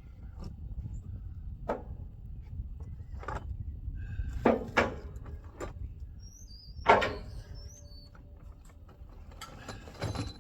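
Several short sharp knocks and clanks at irregular intervals, the loudest about seven seconds in, over a low steady rumble.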